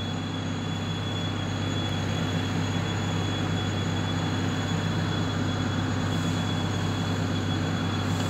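A construction machine running steadily, feeding a thick ribbed hose: an even low hum with a thin high whine above it.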